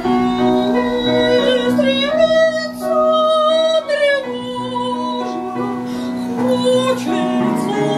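A woman singing a Russian romance in a trained operetta voice, holding long notes, with upright piano accompaniment.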